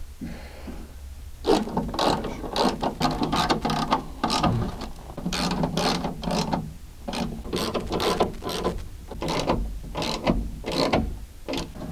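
Manual window regulator in a 1969 Mercury Cougar door being cranked, its gears clicking and rasping in a fast, uneven run of short strokes.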